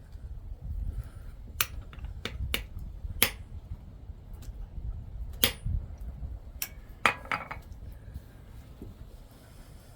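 Light metal clinks and taps from small metalworking tools, about eight sharp strikes spaced irregularly, with a quick cluster about seven seconds in, over a low rumble.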